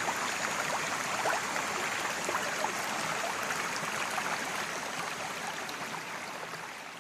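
Creek water rushing and splashing over rocks, a steady wash with many small splashes, fading out near the end.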